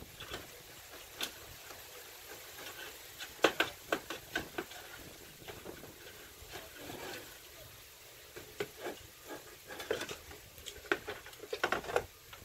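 Irregular clicks and taps of insect screening being fitted by hand: the mesh and its spline being worked into the channel at the top of a screen frame. The sharpest click comes about three and a half seconds in, with a quick cluster near the end.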